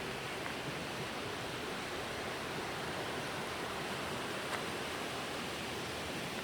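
River water rushing steadily: an even, unbroken wash of flowing water.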